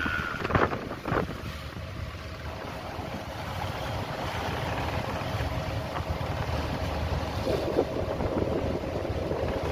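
A boat's engine running steadily under wind buffeting the microphone and the wash of the sea, with two sharp knocks about half a second and a second in.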